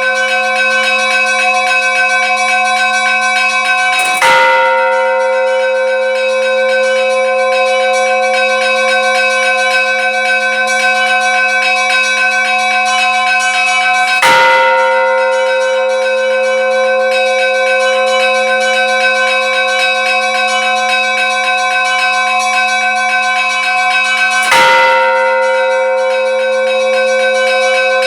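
A bell struck three times, about ten seconds apart, each stroke ringing on long enough to overlap the next.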